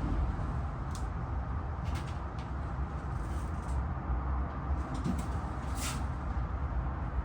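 Steady low rumble with a few light clicks and taps, about a second in, around two seconds in, and near six seconds in.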